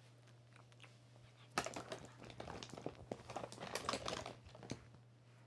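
Makeup products and packaging being handled: a quick run of clicks, taps and crinkles starting about a second and a half in and stopping shortly before the end, over a faint steady low hum.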